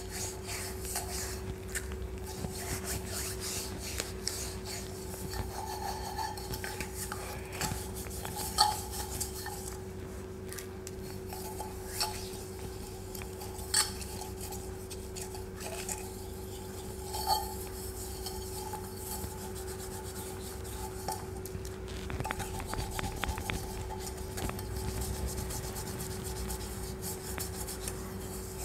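A silver tumbler being scrubbed by hand with a cleaning paste: continuous rubbing and scraping on the metal, with a few sharp clinks of the tumbler.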